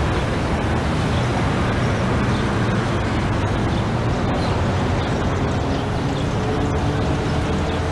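City street traffic ambience played as a sound clip: a steady rumble of road noise that starts and stops abruptly.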